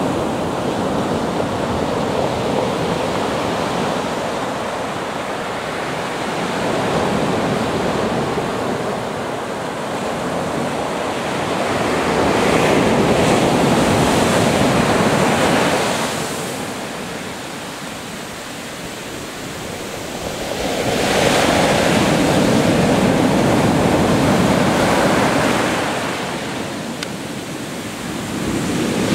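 Pacific Ocean surf breaking and washing in, a continuous rushing wash that swells and ebbs with each wave. The loudest surges come around the middle and again about three-quarters of the way through.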